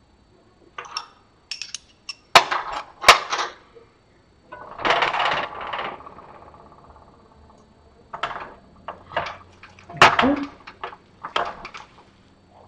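Metal-on-metal clanks and clicks as a metal handle bar is lifted and worked into the machine skate's bracket, with several sharp knocks and, about five seconds in, a longer scraping slide that rings briefly.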